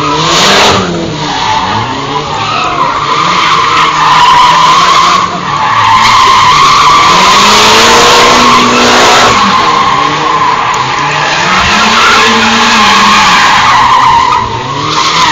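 Rally-prepared Mitsubishi Lancer Evolution sliding through a cone slalom on tarmac. Its tyres squeal almost throughout, with short breaks about a third of the way in and near the end, while the engine revs rise and fall again and again with the throttle.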